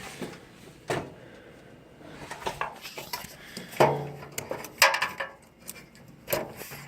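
Metallic clanks and knocks from computer hardware being handled: a string of separate sharp hits with a short ring, roughly a second apart, the loudest near the middle.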